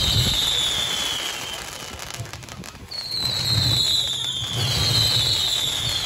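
Fireworks going off, with long falling whistles: one fading out in the first second and a half, and two more starting about three and four and a half seconds in, over crackle and a low rumble.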